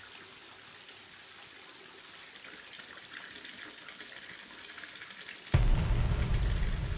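Steady trickle of water with small drips, as from a bathtub tap, from a film's soundtrack. About five and a half seconds in, a sudden deep low rumble comes in and keeps going.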